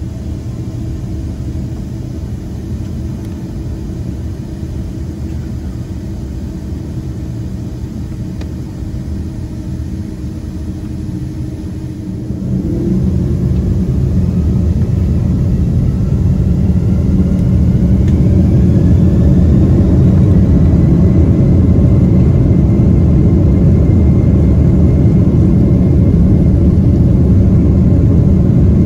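Boeing 767-300's jet engines heard from inside the cabin over the wing: a steady low rumble at first, then about twelve seconds in they spool up to takeoff thrust with a rising whine, building to a louder steady roar as the takeoff roll begins.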